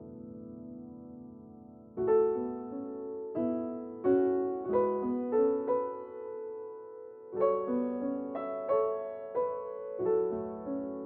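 Background piano music: a held chord fading away, then gentle struck notes and chords from about two seconds in.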